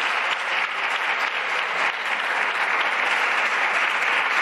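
Steady applause from many deputies clapping in a parliamentary chamber.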